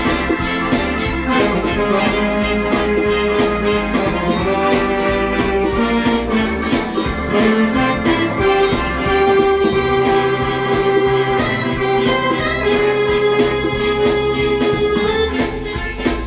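Roland Atelier A-900 electronic organ playing held chords and a melody over a steady drum beat, with a pedal bass line underneath.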